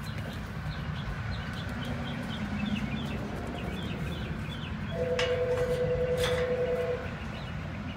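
Small birds chirping repeatedly over a low outdoor rumble. About five seconds in, a steady two-note horn sounds for about two seconds, the loudest thing here, with a couple of sharp clicks.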